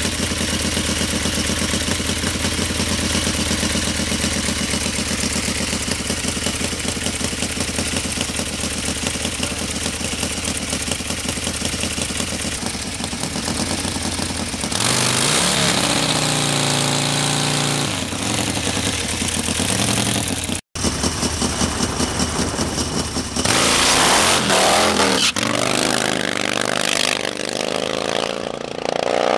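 Nitro-fuelled Harley-Davidson V-twin drag bike engine running at a steady idle, then revved in throttle blips. After a cut it is run louder at higher revs, with the pitch climbing near the end.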